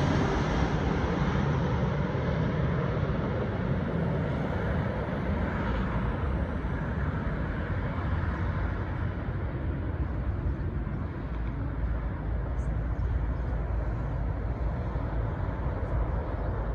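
Jet engine noise from a Boeing 777-300ER's two GE90-115B turbofans on landing approach, receding after passing overhead. It fades from a loud rush to a steady distant low rumble.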